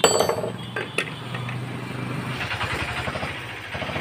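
Small single-cylinder diesel engine running with a steady low hum that turns into a fast, even chugging near the end; two sharp knocks, at the start and about a second in.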